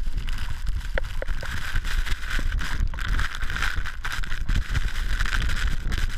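Strong wind buffeting the microphone with a steady hiss of wind-driven snow: the powder cloud of an avalanche blasting over.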